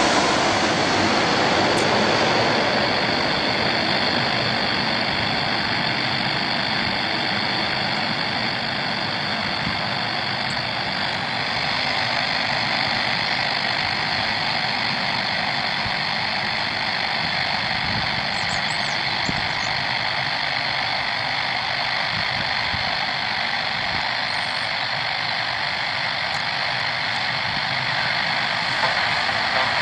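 Boeing 737-800's CFM56 turbofan engines receding after passing low overhead on final approach: a steady jet rumble with a high whine. It fades over the first few seconds, then holds level.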